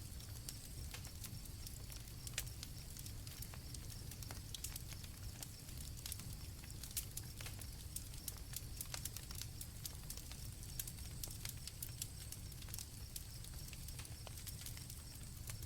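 Campfire crackling, with irregular sharp pops, over a low steady rumble and the continuous high chirring of crickets.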